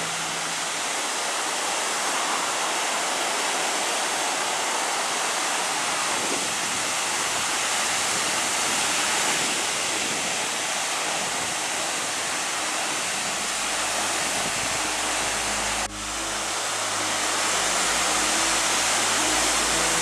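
Ocean surf: a steady, even rush of waves breaking and churning, with a brief sharp drop in level about sixteen seconds in. Faint low music notes come in under the surf during the last third.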